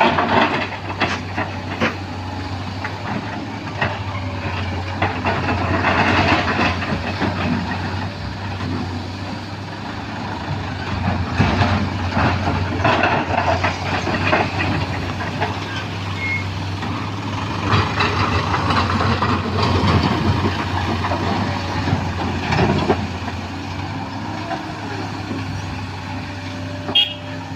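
Sany SY215C hydraulic excavator's diesel engine running steadily as it works loading rock into a dump truck. Several louder spells of rock clattering and scraping come and go.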